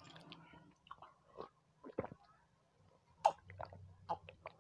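Close-up mouth sounds of chewing, with soft wet clicks and smacks. About three seconds in come a few sharper clicks as water is gulped from a glass.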